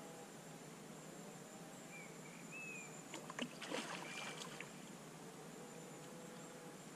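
Water splashing in the shallows at the lake edge for about a second and a half, starting some three seconds in, as a large carp is let go from a retention sling and swims off. A short bird call comes just before.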